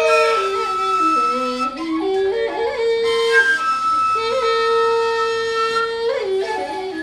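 Khmu bamboo flute (khui) playing a slow folk melody: long held notes, a short run of lower notes about a second in, then back up to the held note, with quick ornamented slides near the end.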